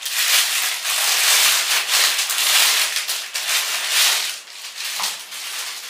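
Continuous rustling and crinkling as a dress and its packaging are handled. It becomes quieter and patchier after about four and a half seconds.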